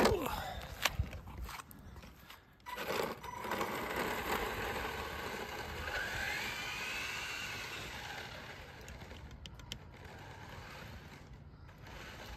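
A radio-controlled Tamiya MF-01X car with a 15-turn HPI brushed motor is set down on tarmac with a sharp clack. About three seconds in it sets off at speed: tyres hissing on the asphalt and the motor and gears whining, with a short rising whine as it speeds up, fading as it runs away down the street.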